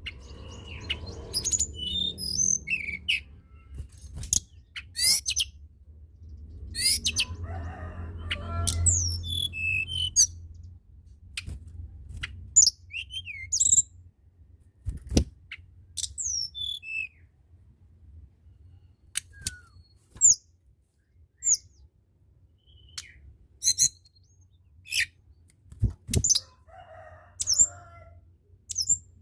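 Tledekan gunung singing: scattered phrases of short, high chirps and downward-sliding whistled notes, over a low hum for roughly the first half. A couple of sharp clicks fall in the second half.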